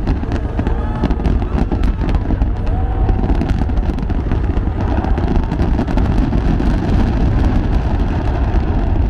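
A fireworks barrage going off without a break: a continuous low rumble of bursts with many sharp crackles over it.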